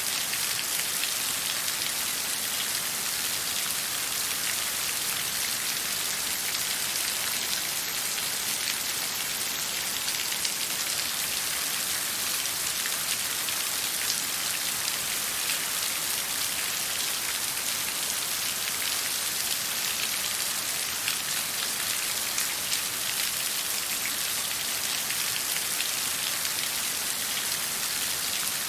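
Steady rain falling on a surface: a dense, even patter of drops that holds unchanged throughout.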